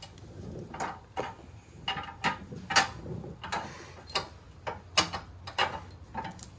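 A sway bar being snaked into a Can-Am Spyder's frame channel, knocking and clicking against the frame: about a dozen irregular sharp clinks and knocks.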